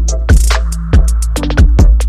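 Electronic dance music with a heavy sustained bass and sharp, regular drum hits.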